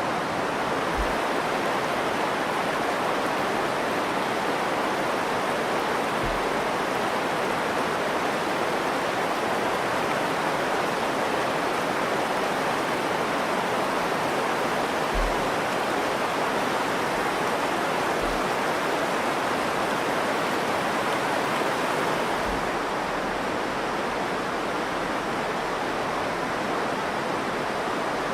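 The Virgin River rushing steadily through the canyon, an even hiss of flowing water, with a few faint low thumps.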